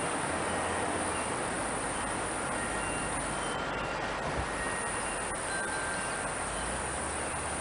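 Steady outdoor background hiss, with a few faint, short high-pitched tones scattered through it.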